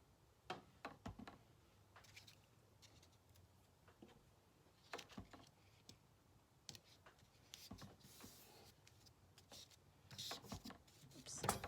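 Faint paper handling: scattered light taps and rustles of a paper cut-out being glued down and pressed flat, busier near the end.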